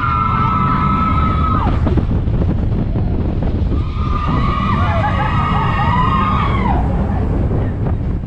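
Mine-train roller coaster rumbling along its track, with two long, high-pitched cries from riders over it, the first ending about two seconds in and the second lasting about three seconds from around the middle.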